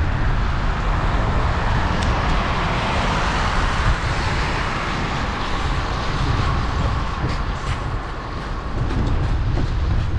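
Wind buffeting a GoPro's microphone on a moving bicycle, a steady low rumble, with the hiss of the tyres rolling over a wet cycle path that swells for several seconds and then eases off near the end.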